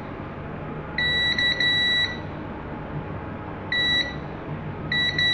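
Digital multimeter's continuity beeper sounding a steady high beep in separate bursts as the probe touches a capacitor on a phone logic board: about a second long starting a second in, briefly near four seconds, and again near the end. The beep means the capacitor's line is shorted to ground.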